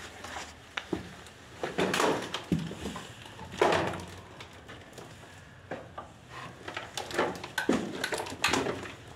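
Footsteps crunching and scraping over rubble and litter on a debris-strewn floor, an irregular run of steps.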